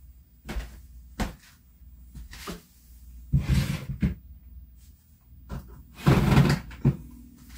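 Knocks and short scrapes of a plastic folding step stool being handled and shifted on a bare plywood subfloor, with footsteps on the boards. The longest and loudest scrape comes about six seconds in.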